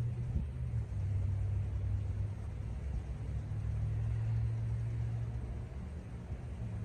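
A low, steady rumble like a vehicle engine, fading a little near the end.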